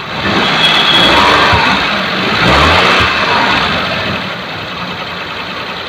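Maruti Suzuki 800's three-cylinder petrol engine idling and given two light blips of throttle, the first in the opening second and the second near three seconds, then settling back to idle. On such light throttle it makes an abnormal noise from the timing side, which the mechanic sets out to trace to the alternator belt, the AC belt or the timing.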